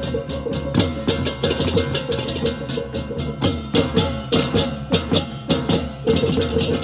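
Balinese baleganjur gamelan playing fast: dense, rapid clashing of cengceng cymbals and drum strokes over a ringing metallic tone. The tone grows louder near the end.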